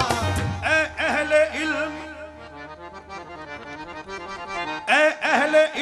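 Qawwali music led by a harmonium playing a melodic interlude with ornamented phrases. The tabla and hand-clapping stop about half a second in, the music drops quieter in the middle and swells again near the end.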